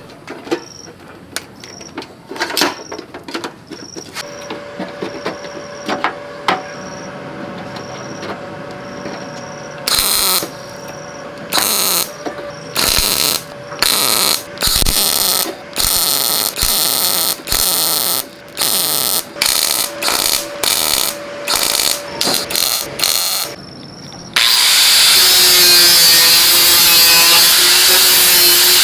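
Scattered knocks, then hand-worked abrasive strokes on metal, each about half a second, roughly one a second. A little before the end a power tool starts and runs steadily. Insects chirp in a repeating rhythm under the first part.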